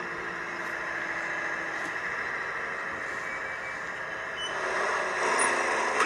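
Semi truck driving on a highway, a steady engine and road hum that grows a little louder near the end.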